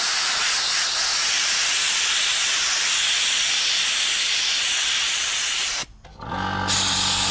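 Handheld air-powered sand-blasting gun, used for soda blasting, spraying with a steady hiss of compressed air and blast media. It cuts off about six seconds in, and a steady mechanical hum follows.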